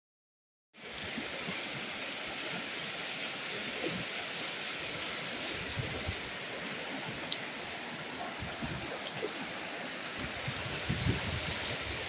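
Fast, shallow river rushing over stones and small rapids, a steady rush of water that starts suddenly about a second in.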